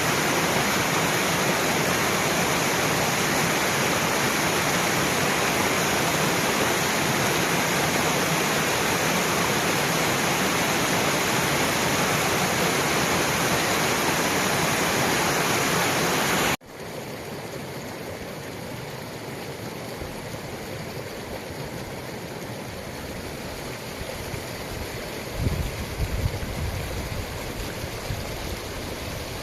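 Rushing water of a mountain stream, a steady loud rush; about two-thirds of the way through it cuts off abruptly to a quieter steady rush, with a few low bumps on the microphone near the end.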